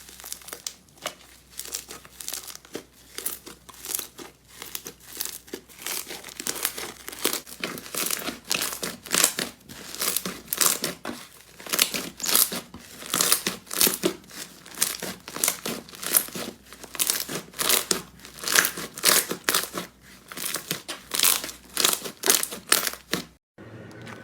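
Slime being squeezed and kneaded by hand, making dense, irregular crinkling crackles several times a second. The sound cuts off suddenly near the end.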